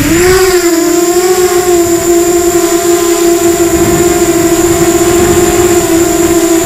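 ZMR250 racing quadcopter's brushless motors and propellers whining. The pitch climbs quickly in the first moment as they spin up, then holds a steady high hum.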